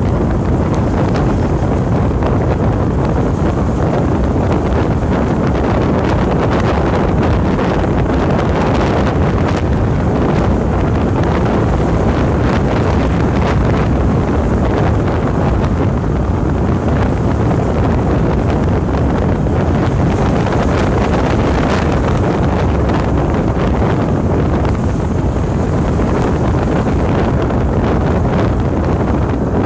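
Steady wind rumble on the microphone of a camera held at the side window of a moving car, with the car's road noise underneath.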